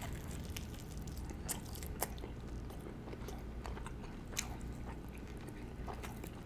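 Close-miked chewing of spicy fried chicken with gravy: steady wet chewing with scattered crisp crunches of the breading, the sharpest a little past the middle.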